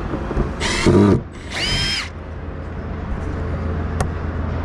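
Cordless drill/driver run in two short bursts of about half a second each, about a second in and again just before two seconds in. Each is a motor whine, and the second rises in pitch and then holds. A steady low hum runs underneath.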